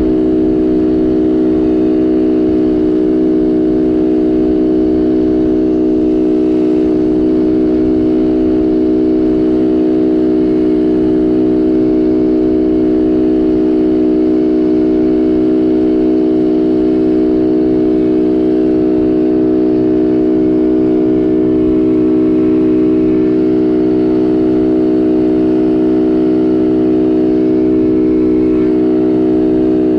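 Small 50cc youth quad (ATV) engine running under steady throttle, its drone holding one nearly unchanging pitch throughout, heard close up from on board.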